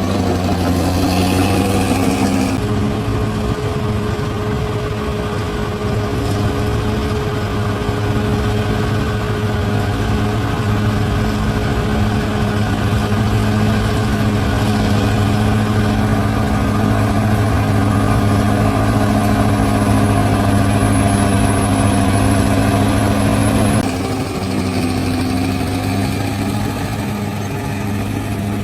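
Bulldozer's diesel engine running steadily with a deep, even hum. Its note shifts slightly about two and a half seconds in and again near the end.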